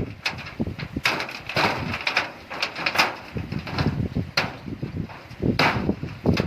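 Irregular knocks and clatter of wood, coming singly and in quick clusters, over a low rumbling.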